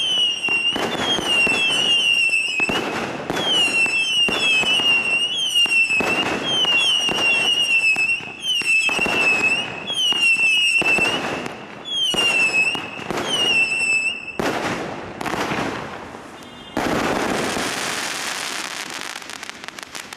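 A 1.3G Screaming Spiders 100-shot finale cake firing in quick succession, about two shots a second: each has a whistling tail that dips in pitch and then holds, over the pops of the shells. The whistles stop about fourteen seconds in, followed by crackling and then a few seconds of steady hiss that fades away.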